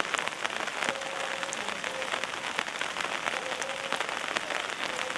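Steady rain, with many sharp ticks of drops striking close to the microphone.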